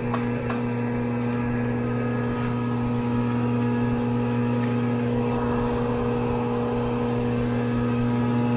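Crankshaft grinder running with a steady electric motor hum, a few light clicks right at the start, and a hiss joining about halfway through.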